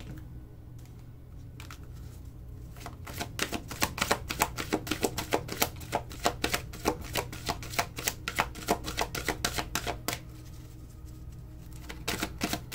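Tarot cards being shuffled by hand: a fast, irregular run of card clicks and flicks that starts about three seconds in, stops briefly, and picks up again near the end.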